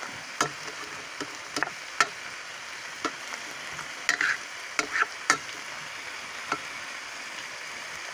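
Chicken and vegetables sizzling steadily in a non-stick pan while a spatula stirs them. Irregular sharp knocks and scrapes of the spatula against the pan stand out above the sizzle.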